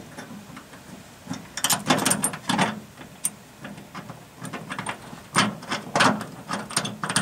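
Irregular small metallic clicks and clinks of bolt hardware being handled, as a pad and washer are fitted by hand onto a carriage bolt under a pickup bed. The clicks come in two busier bursts, about two seconds in and again about six seconds in.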